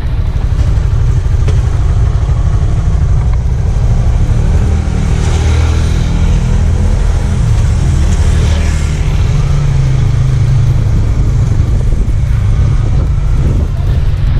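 Honda Supra GTR 150's single-cylinder four-stroke engine running steadily, with small changes in engine speed.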